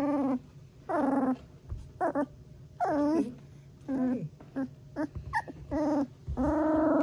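A 3-week-old golden retriever puppy trilling: a string of about ten short pitched calls, several gliding down in pitch, ending in a longer call near the end.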